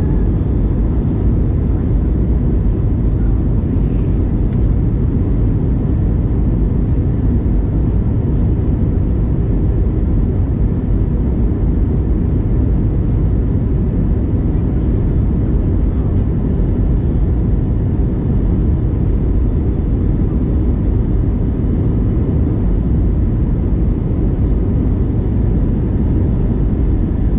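Steady cabin noise of an Airbus A321neo airliner descending towards landing: a low rush of airflow with a faint steady engine hum, heard from inside the passenger cabin.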